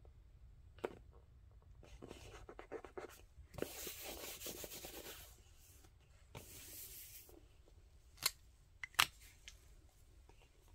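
Fingers rubbing a sticker down and sliding over the paper pages of a sticker book: a crackly scratching, then two stretches of soft swishing. Near the end come two sharp clicks.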